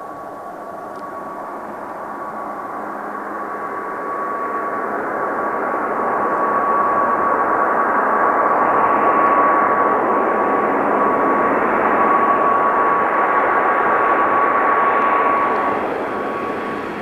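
Dash 8 Q400 turboprop airliner on final approach, its two Pratt & Whitney PW150A engines and propellers running with a steady high whine over a rushing noise. It grows louder as the aircraft nears and eases off near the end.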